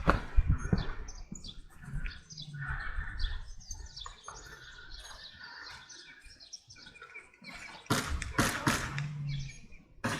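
Birds chirping, with a few sharp clicks or knocks about eight seconds in.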